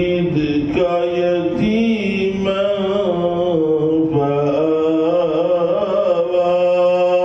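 A man chanting Quranic recitation aloud in a slow, melodic style, holding long notes that rise and fall in pitch, as the imam recites during the Eid prayer.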